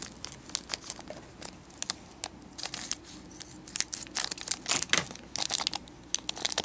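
Small clear plastic bag crinkling in the fingers, snipped with scissors and pulled open; the crackling comes thicker and louder in the second half.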